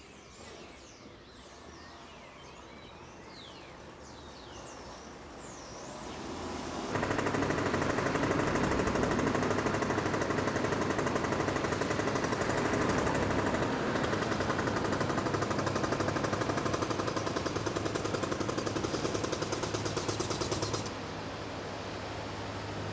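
Birds chirping faintly, then a loud, rapid, even mechanical hammering that sets in about seven seconds in and stops sharply near the end, giving way to a steady rushing noise.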